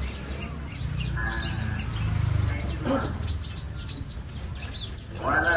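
A konin songbird singing actively: a rapid, continuous string of short, high chirps and twitters.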